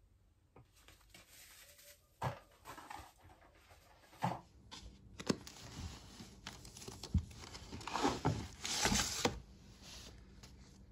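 Paper and card being handled: rustling, sliding and a few sharp light knocks, as sketchbooks are shifted and pulled from a stack. The rustling is loudest about eight to nine and a half seconds in.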